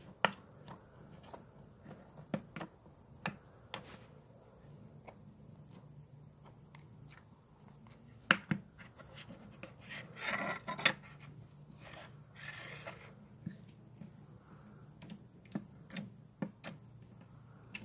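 Clear green putty slime being poked and pressed with the fingertips, giving irregular sharp clicks and pops. About ten seconds in come two longer crackling squishes.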